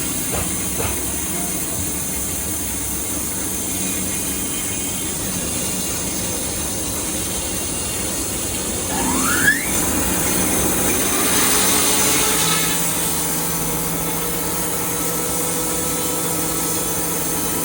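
Sawmill with a thin blade running and cutting timber into boards: a steady hiss of the cut, a quick rising squeal about halfway through, then louder cutting for a few seconds and a steady low hum toward the end.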